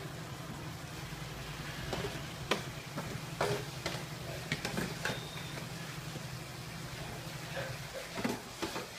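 Metal spoon stirring a thick meat sauce in a large metal pot, with scattered scrapes and knocks against the pot and a light sizzle. A steady low hum runs underneath and fades about eight seconds in.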